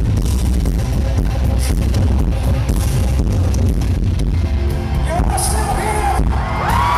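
Live rock band playing loudly through the concert sound system, with a heavy bass, heard from the crowd in front of the stage.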